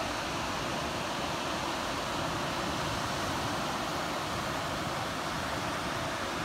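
Steady wash of surf breaking on a sandy beach, mixed with wind buffeting the microphone.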